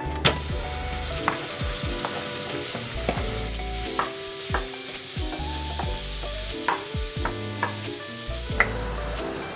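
Ground pork sizzling as it fries in sesame oil in a frying pan, with a wooden spatula scraping and knocking against the pan several times. Background music plays underneath.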